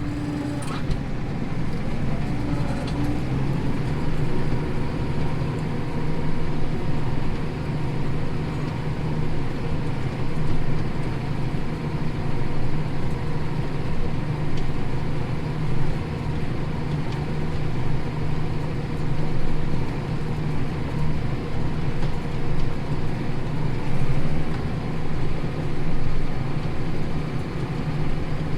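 Tractor engine running steadily under load while pulling a plough through stubble, a continuous drone with no breaks.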